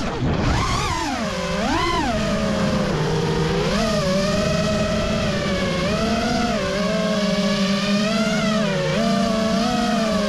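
FPV freestyle quadcopter's brushless motors and propellers whining, the pitch swooping up and down sharply with the throttle in the first two seconds, then settling into a steadier hum with small rises and dips as the drone flies low and slow.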